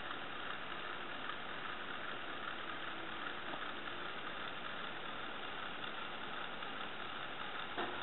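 Steady background hiss with a faint low hum, unchanging throughout, with no distinct events.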